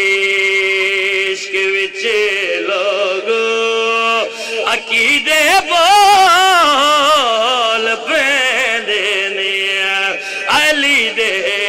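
A man's voice chanting a Punjabi qasida in a melismatic style through a microphone, with long held notes and wavering ornamented runs broken by short breaths.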